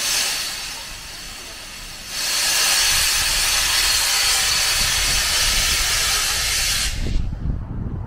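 Steam locomotive letting off steam: a brief hiss at the start, then a loud steady hiss for about five seconds that cuts off suddenly, followed by a low rumble near the end.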